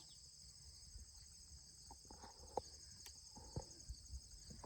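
Faint, steady chorus of crickets trilling high and pulsing, with a few soft clicks in the middle.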